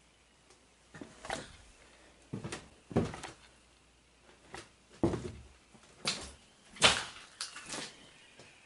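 A dozen or so irregular knocks and clicks in small clusters, the loudest about seven seconds in.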